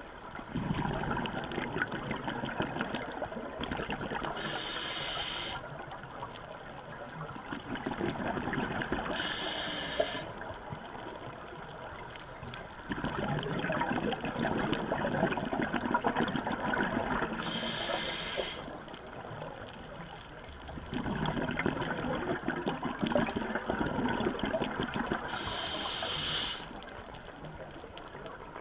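Scuba diver's regulator breathing: a short hissing inhale, then a long rush of exhaled bubbles, repeating about every eight seconds.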